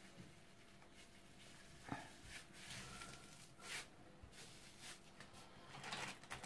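Near silence: faint room tone with a few soft knocks and rustles as hands work meat into a metal ham press.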